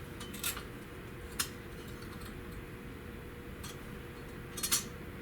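A few light metallic clinks and taps from handling tools and sheet metal during rust-repair work on a car floor pan, over a steady low hum.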